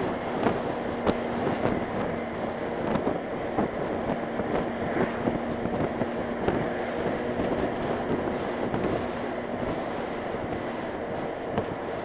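Wind rushing over the microphone of a moving motorcycle, with the engine and road noise running steadily underneath.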